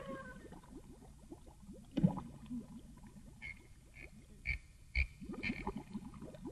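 Quiet cartoon sound effects underwater: a steady low bubbling made of many small rising blips, a single thump about two seconds in, then a run of short high plinking notes with soft knocks in the second half.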